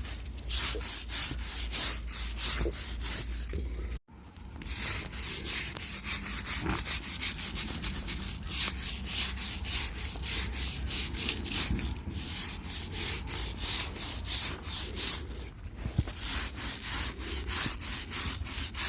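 Brush scrubbing the concrete of a dug-out foundation crack with rapid back-and-forth strokes, about four a second, cleaning it for sealant. The strokes break off briefly about four seconds in.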